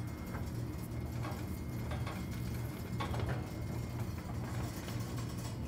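Steady low machinery hum in a boiler test room, with a few faint taps and clicks from the test stand's handwheel and fittings being handled.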